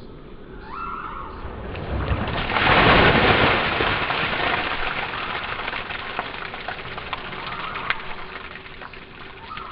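A basin full of water dumped over a person's head: a heavy splash about two seconds in, loudest around three seconds, then water pouring off the body and splattering onto the ground, tapering into scattered drips.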